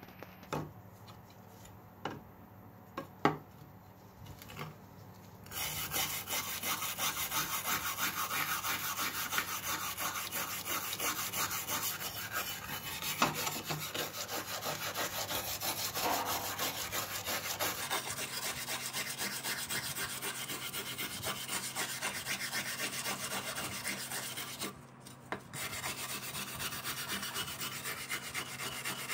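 Wire brush scrubbing the rusty steel blade of an old masonry trowel in quick back-and-forth strokes, scraping off rust and black scale. A few light clicks and knocks come first, the scrubbing starts about five seconds in and stops briefly near the end.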